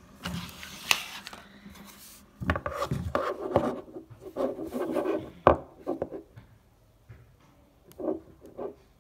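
Hand stopping a spinning plastic fidget spinner and handling it on a tabletop: rubbing and scraping of plastic on the surface, with a sharp click about a second in and a loud knock about halfway through, then two short rubs near the end.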